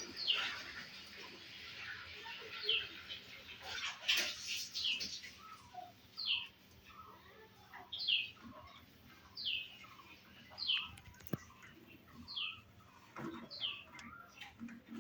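Pet parrot giving short, high chirps that fall in pitch, repeated about every second and a half, with fainter, lower warbling notes between them.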